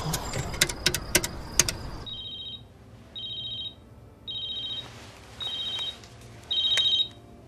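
Mobile phone ringing: five short, high electronic rings about a second apart, the last one louder. Before the rings start there are a few sharp clicks.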